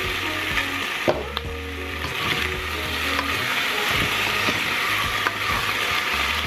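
Garlic cloves sizzling as they fry in a nonstick pot, stirred with a wooden spoon that knocks against the pot a few times.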